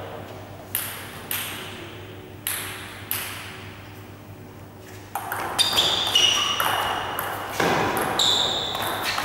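Table tennis ball knocking: four slow single knocks spaced about a second apart, then from about five seconds in a rally, the ball clicking quickly back and forth off the table and bats with a short ringing ping on each hit.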